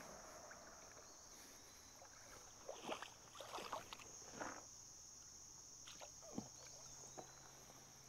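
Faint wading in shallow creek water: a few sloshes and splashes around the legs cluster about three to four and a half seconds in. A steady high insect drone runs underneath.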